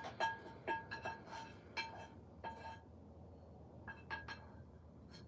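A metal utensil tapping against a frying pan while food is served from it onto a plate: about a dozen light clinks that each ring briefly at the same pitch. The clinks come in a quick run, pause about halfway through, then come a few more times near the end.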